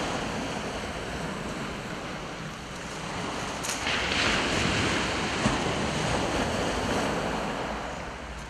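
Small waves washing onto a shingle beach, swelling to their loudest about halfway through, with wind buffeting the microphone.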